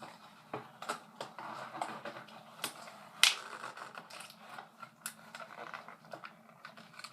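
Hands working foam darts loose from a plastic blister-pack tray: irregular plastic clicks, crinkles and scrapes, with one sharper snap about three seconds in.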